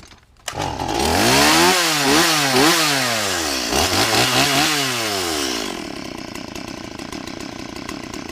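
Stihl two-stroke chainsaw engine starts running about half a second in and is revved up and down several times. It then drops to a rough, uneven low idle that bogs down: the idle is set too low, so the saw won't hold an idle and will eventually stall.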